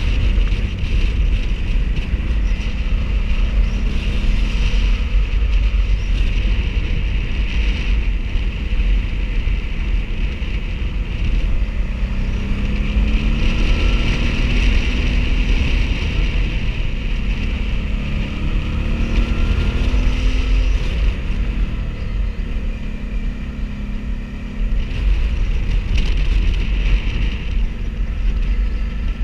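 Motorcycle engine running on the move, its pitch rising and falling a few times with the throttle, under heavy wind rumble on the microphone.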